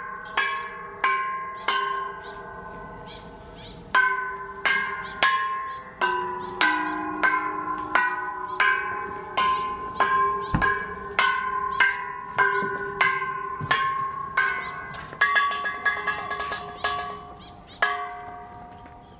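A row of hanging metal Thai temple bells struck one after another, a strike every half second or so, each bell ringing on and overlapping the next. There is a pause of about two seconds near the start, and the ringing dies away after the last strike near the end.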